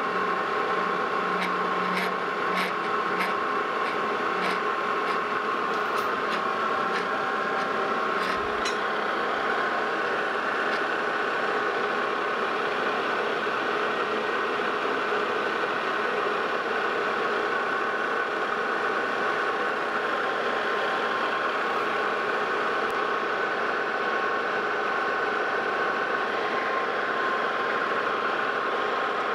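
Metal lathe running under power during a thread-cutting pass on a long, thin shaft, a steady machine whine with several sharp clicks in the first few seconds.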